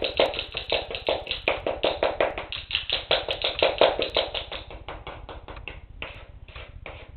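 Wooden spoon beating cake mixture, giving a rapid castanet-like clacking of about six clicks a second. The clacks grow quieter and sparser over the last two seconds or so.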